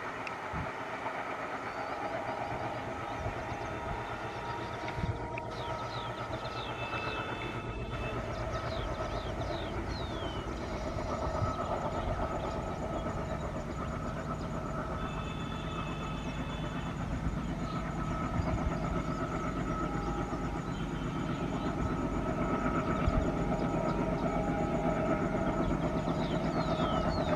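Diesel-hauled passenger train approaching, its engine and wheel rumble growing steadily louder.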